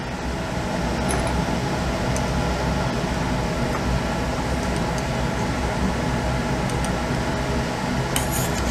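Steady fan-like hum, likely lab ventilation. Over it come a few faint glass clinks as a conical flask of ethyl acetate is swirled over granular sodium sulfate drying agent, with a short run of clinks near the end.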